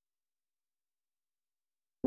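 Near silence: the soundtrack is dead quiet.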